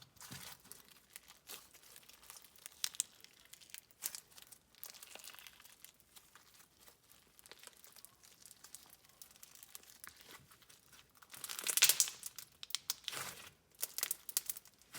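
Thick, crunchy slushy slime being squeezed and poked, giving off soft crackling and popping, with a louder stretch of crackling near the end.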